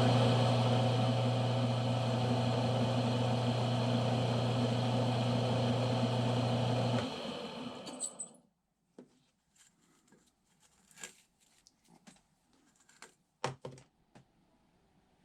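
Smithy combination lathe-mill running at high speed, turning a metal part under power feed: a steady motor hum with a mechanical whir. About seven seconds in the machine is switched off and spins down within about a second. A few faint clicks and a light tap follow.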